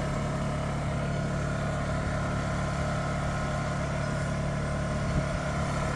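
Portable generator engine running steadily at a constant speed, an even hum.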